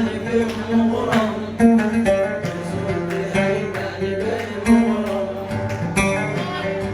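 Instrumental passage of a Yemeni song: a plucked string instrument plays a quick melody of many short, sharply struck notes.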